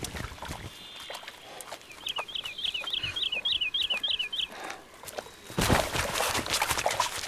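A bird calls a quick run of about ten short falling notes about two seconds in. Near the end comes loud splashing as young brown bears move through the shallow bog pool.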